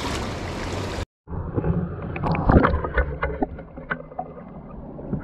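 A spring-fed trout stream heard through a camera held underwater: a muffled low rush of water with scattered clicks and knocks, the loudest about two and a half seconds in. It follows about a second of open-air rushing noise and a brief dropout at the cut.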